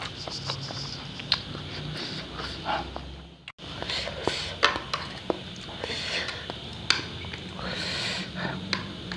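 Close-miked eating of spicy instant noodles: chopsticks clicking on the plate, chewing and slurping, with heavy breathing and sniffing from the chilli heat.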